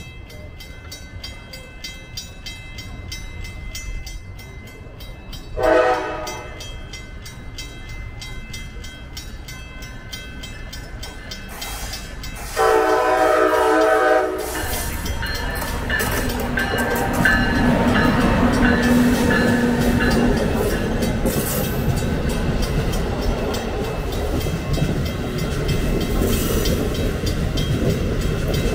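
A train sounds its horn twice, a short blast about six seconds in and a longer one about thirteen seconds in. It then passes close by with a steady, loud noise of wheels on rails.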